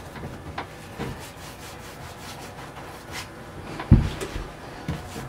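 Paintbrush strokes across the bottom of a panel door, a soft rubbing of the bristles on the wood, with one dull thump about four seconds in.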